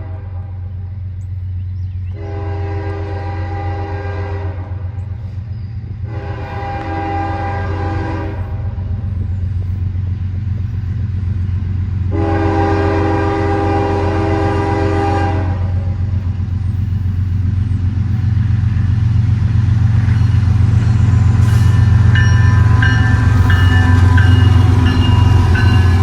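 Diesel freight locomotive approaching and sounding its air horn in four long blasts, the last one longest, over a low engine rumble that grows steadily louder.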